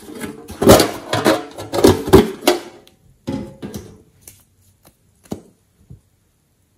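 A metal tin box being handled and opened, with a rapid run of clicks, clanks and rattles from its latch and lid, loudest in the first three seconds. After that come a short second cluster and then a few single light clicks and taps.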